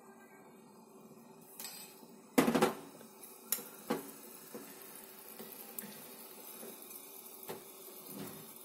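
Steel spoon stirring sugar syrup in a steel pot, clinking and scraping against the pot. There is a loud clatter about two and a half seconds in, followed by a few lighter clinks.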